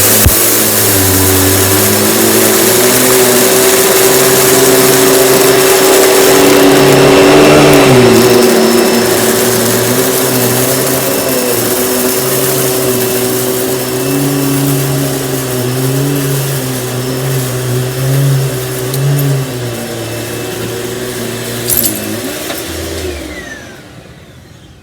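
Panasonic upright vacuum cleaner running on a floor strewn with rice and oatmeal, its motor and stiff-bristled brush roll going steadily, the pitch wavering as it is pushed back and forth. The motor winds down and stops near the end.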